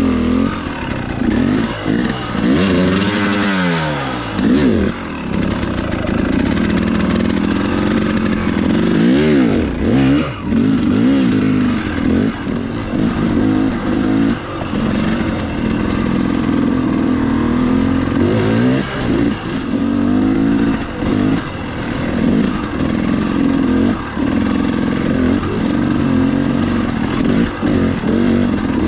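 KTM 300XC-W single-cylinder two-stroke dirt bike engine revving up and down over and over, its pitch climbing and falling as the throttle is worked through rough enduro terrain.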